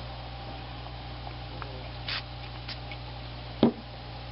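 A short hiss of a trigger spray bottle squirting screen cleaner onto a cloth about two seconds in, over a steady low hum. A sharp knock follows near the end.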